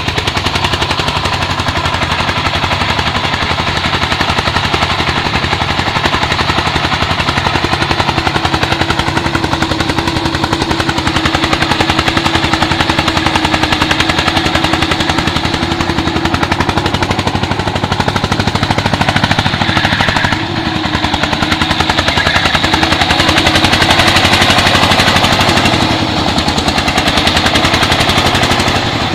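Single-cylinder diesel engine of a công nông farm truck running hard under load, a loud, rapid, steady chugging. A steady whine joins about eight seconds in and wavers around twenty seconds in.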